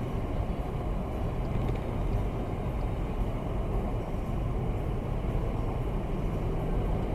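Steady road and engine noise inside a car's cabin at motorway speed.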